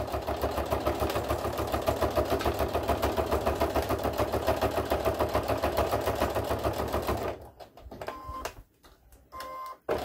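Sewing machine top-stitching at a steady speed, its needle strokes coming in a fast, even rhythm, then stopping about seven seconds in. Two short beeps sound in the pause, and the stitching starts again at the very end.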